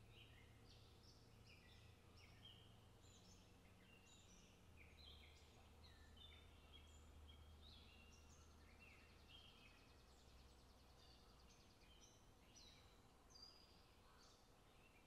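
Near silence with faint bird chirping throughout: many short, quick chirps over a faint low hum.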